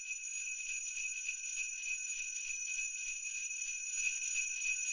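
Jingle bells shaken steadily in a continuous, even jingling.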